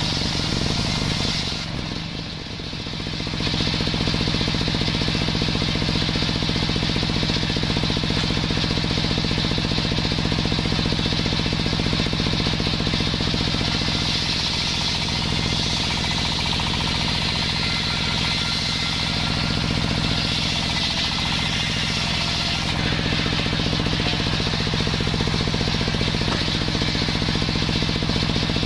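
Large bench-mounted circular saw running and cutting through sengon wood: a steady machine hum under the hiss of the blade in the wood. The sound dips briefly about two seconds in, then the cutting runs on steadily.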